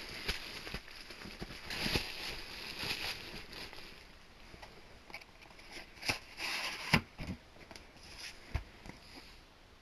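DVD box-set packaging being handled: crinkling, rustling bursts and scattered sharp clicks, the loudest click about seven seconds in, getting quieter toward the end.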